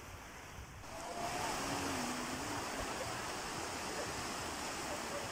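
Small sea waves breaking and washing up onto a sandy shore, a steady rush of surf that grows louder about a second in.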